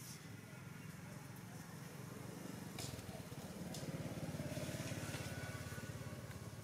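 A motor vehicle engine running nearby, growing louder about three seconds in and easing off near the end, with a few sharp clicks over it.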